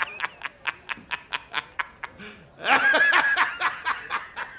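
A man laughing in quick, staccato bursts, about five 'ha' pulses a second, with a louder, drawn-out stretch of laughter about midway through.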